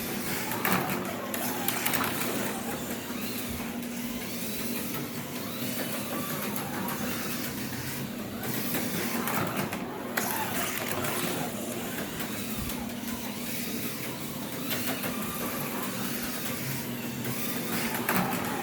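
HO slot car on an Auto World Super 3 chassis running laps on a plastic track: its small electric motor whirs steadily, with scattered sharp clicks as the car runs over the track.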